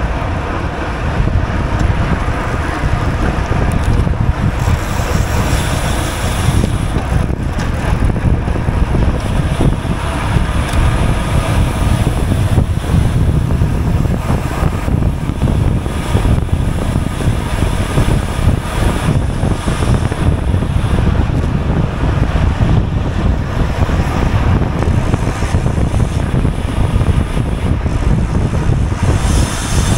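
Steady wind rushing over a GoPro's microphone on a bicycle moving at race speed.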